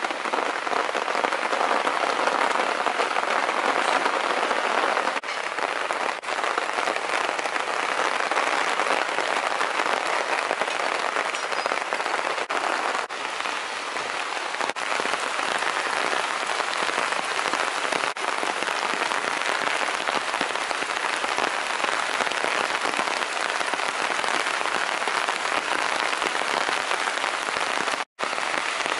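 Steady rain falling, a dense even hiss with a few separate drop ticks here and there; it cuts out for a moment near the end.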